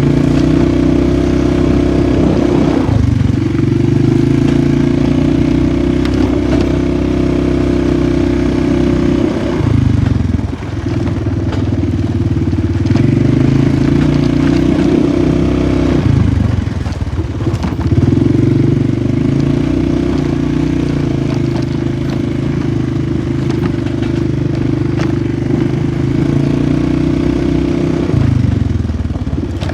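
Polaris 450 ATV engine running under throttle while riding. The revs drop off and pick back up four times, as the throttle is let off and reapplied.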